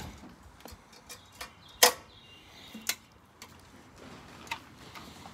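Handling noise: scattered sharp clicks and taps as the engine and its packaging are handled, about half a dozen irregular ones with the loudest a little under two seconds in.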